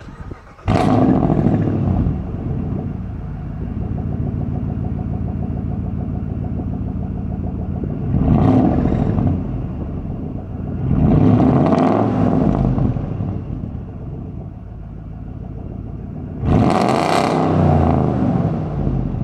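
2005 Dodge Ram's 5.7 L Hemi V8 through a true dual straight-pipe exhaust: it fires up about a second in with a loud flare, settles to a steady idle, and is revved three times, each blip rising and falling back to idle.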